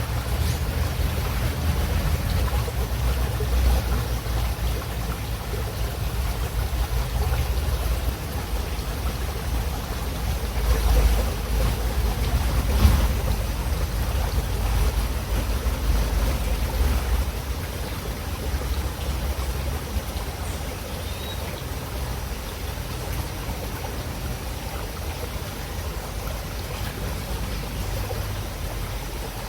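Running river water, a steady rushing noise with a strong low rumble, briefly louder twice near the middle.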